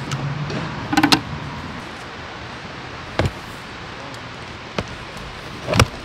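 Slide rails being handled and fitted onto the rim of a storage box: a few hard clicks and knocks, a ringing double clack about a second in and the loudest knock near the end, over a steady hiss.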